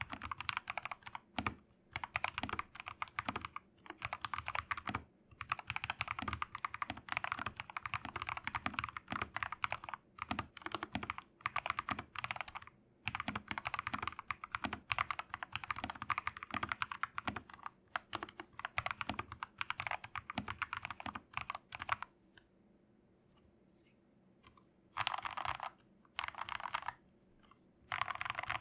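Mechanical keyboard typing: an MK870 with a polycarbonate plate, foam-dampened case and lubed, filmed Gateron Milky Yellow linear switches, keys struck in quick succession. The typing stops for a few seconds about three-quarters of the way through, then comes back in two short flurries near the end.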